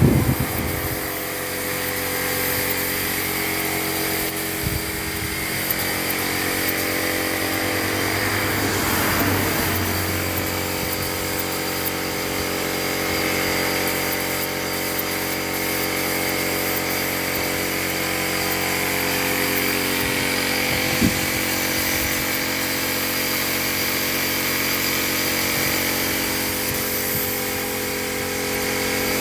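Compressed-air spray gun hissing steadily as it sprays clear finish onto wood, over the steady hum of the air compressor's motor.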